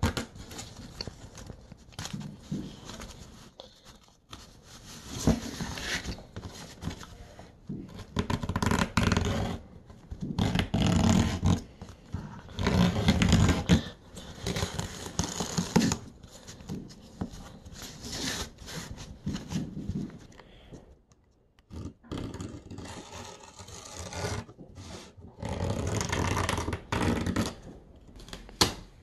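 X-Acto craft knife cutting and scraping through canvas fabric along a wooden frame's edge, with the trimmed canvas tearing away, in irregular strokes a second or two long.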